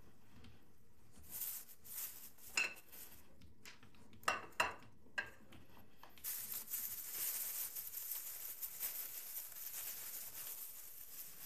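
Several sharp metal clinks and knocks from a hand-cranked meat grinder being worked, then, from about six seconds in, a plastic bag crinkling steadily as cookies are handled inside it.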